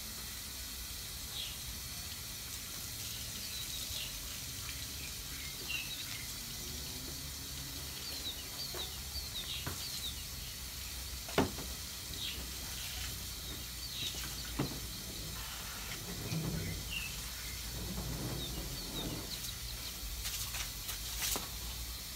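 Small birds chirping in short repeated calls over a steady hiss, with a couple of sharp knocks partway through.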